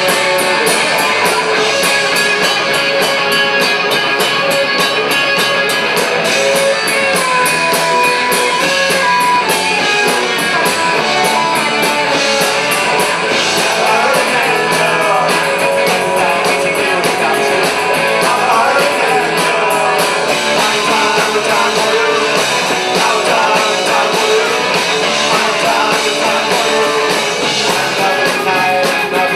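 A rock band playing live: electric guitars over a drum kit, loud and continuous.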